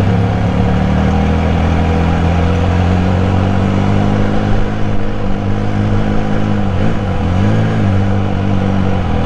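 Benelli Cafe Racer 1130's three-cylinder engine and exhaust running at low, steady revs while creeping along in slow traffic, with a brief dip and rise in pitch near the end.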